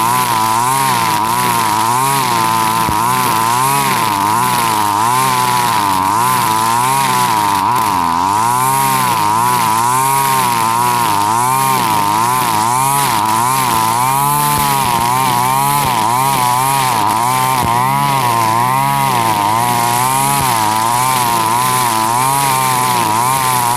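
Husqvarna 542RBS backpack brush cutter's 42cc two-stroke engine running at high revs, its pitch rising and falling about once a second as the spinning 2.4 mm square nylon line cuts through thick, tall grass.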